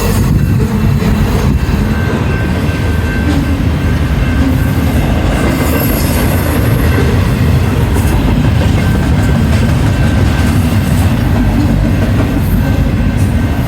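BNSF intermodal freight train rolling past, a loud steady rumble of steel wheels on rail.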